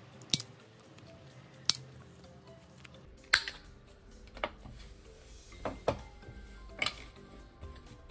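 Corner-rounding punch snapping through card at the corners, a series of sharp clicks about a second apart, over quiet background music.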